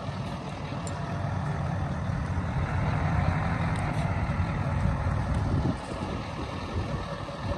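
Heavy-haul tractor unit's diesel engine running as the truck moves slowly, a low rumble that builds louder about two seconds in and drops off sharply near six seconds.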